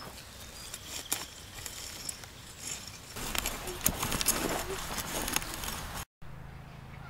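Steel hand-hoe blade scraping and chopping through dry, cloddy soil, with small clicks and scuffs of clods. From about three seconds in the strokes get louder and busier, then the sound cuts off abruptly near the end and a low steady hum follows.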